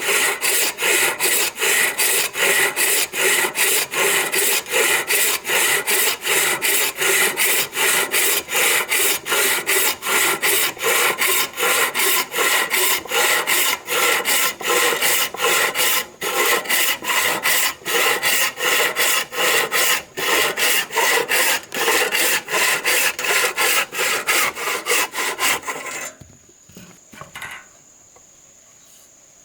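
A hand tool rasping on wood in quick, even strokes, about two or three a second, that stop abruptly near the end. A steady high-pitched insect call is then left.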